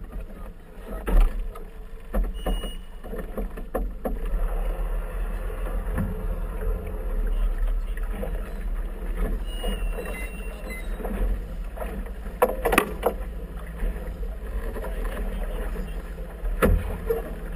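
Small motorboat under way: a steady low engine rumble and water rushing along the hull, muffled as heard inside a waterproof camera housing. A few sharp knocks cut through about a second in, twice around twelve seconds in, and near the end.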